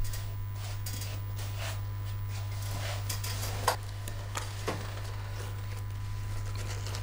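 Steady low hum of room tone, with a few light knocks and small handling sounds, the clearest about halfway through and a second later.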